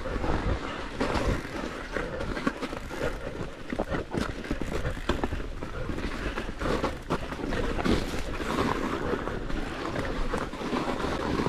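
Mondraker electric mountain bike riding down a snow-covered trail: tyres crunching and rolling through the snow, and the bike rattling over bumps. A steady rush of noise dotted with frequent short knocks, with some wind on the microphone.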